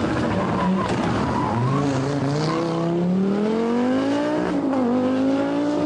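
Audi Quattro Group B rally car's turbocharged five-cylinder engine accelerating hard as it passes. Its pitch climbs for a couple of seconds, dips briefly, then climbs again.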